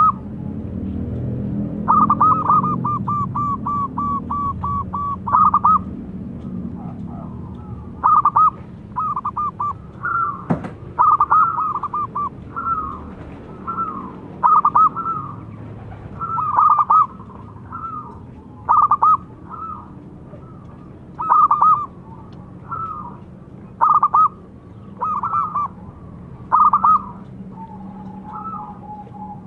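Zebra dove (local perkutut) cooing: a fast rolling run of notes about two seconds in, then short bubbling coo phrases repeated every one to two seconds.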